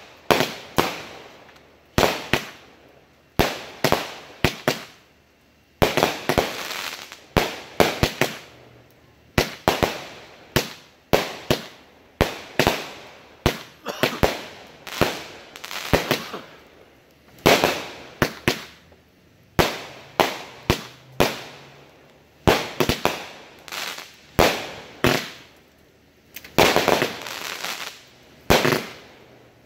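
Consumer aerial fireworks from a finale board bursting overhead: a rapid, irregular string of sharp bangs, often two or three within a second, with no let-up.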